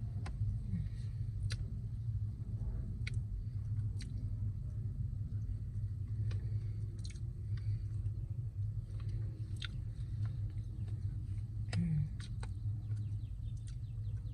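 Close-up eating sounds: soft, wet chewing and mouth clicks from someone eating creamy cheesecake, heard over a steady low hum inside a car.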